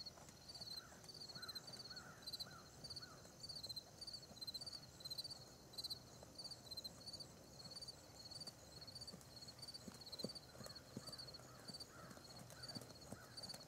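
Faint hoofbeats of a ridden horse working on a sand arena, soft low thuds, under a steady high-pitched chirping that repeats about twice a second.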